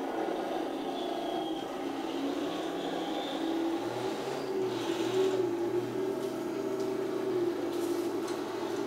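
Heng Long Tiger I radio-controlled tank running, an engine-like hum that steps up in pitch about three and a half seconds in and falls back near the end.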